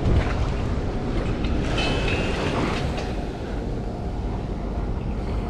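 Wind buffeting the microphone over the wash of sea waves on the shore, a steady rumbling noise, with a couple of light clicks near the middle.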